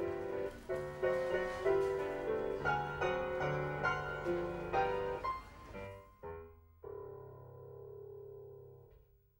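Piano music: a run of notes that slows and ends on one held chord, which fades out.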